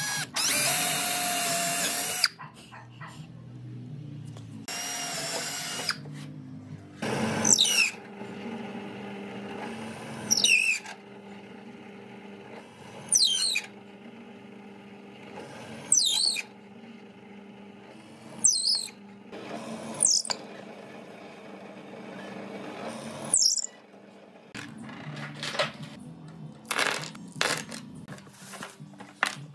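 A power drill bores into wood. Then a drill press runs with a steady hum while its long auger bit cuts a row of holes through a wooden board, a short louder burst of cutting about every three seconds.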